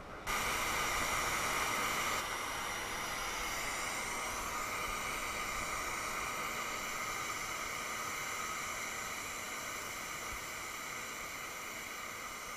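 A gas flame heating the steel hisses steadily. It starts abruptly about a third of a second in and eases slightly after about two seconds.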